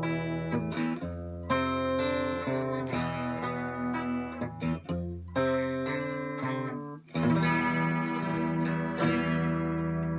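Solid-body 12-string electric guitar played clean on the bridge pickup, in picked single-note lines. Its string pairs are tuned in octaves, which gives a natural chorus-like shimmer. About seven seconds in, a louder strike is left ringing.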